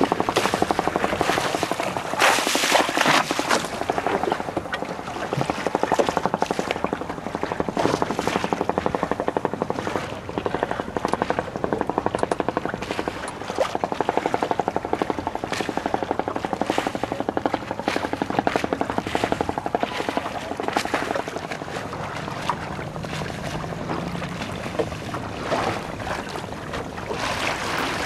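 A small boat's motor running steadily at low speed, with wind gusts buffeting the microphone.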